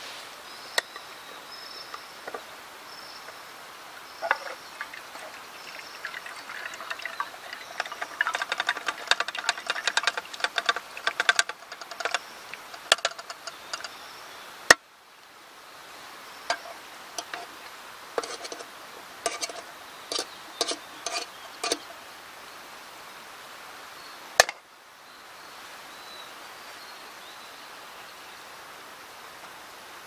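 Metal utensil clinking and scraping against metal camp cookware in quick runs of ticks as food is scraped into the pot, over the steady rush of a river. Two sharp single clicks are the loudest sounds, one about halfway through and one later on.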